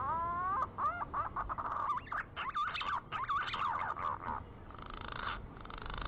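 A recorded punai (green pigeon) call used as a bird-trapping lure: a series of wavering whistled notes that glide up and down, quickening into a rapid run in the middle, then a rougher, hissy passage near the end.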